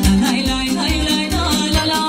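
Romanian folk dance music (muzică populară) played by a live band, with a quick, steady bass beat under the melody.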